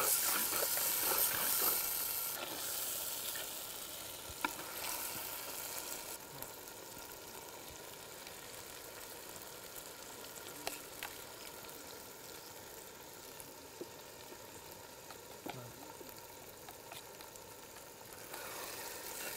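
Onions, garlic, ginger and chopped tomatoes sizzling in hot oil in a cast-iron kadhai over a wood fire, stirred with a steel ladle. The sizzling grows fainter over the first several seconds, with a few sharp clicks.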